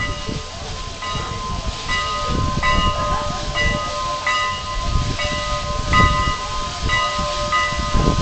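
Steam locomotive bell ringing steadily, about one and a half strokes a second, over a low rumble.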